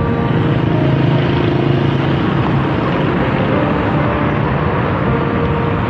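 Steady road traffic noise: passing vehicle engines and tyres make a constant hum.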